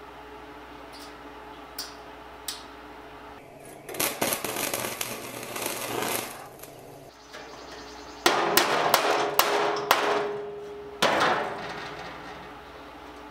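Electric arc welding on badly pitted steel sheet: the arc crackles in three short runs of about two seconds each, starting about four seconds in, and the middle run sputters and pops. The rough, pitted edges weld poorly.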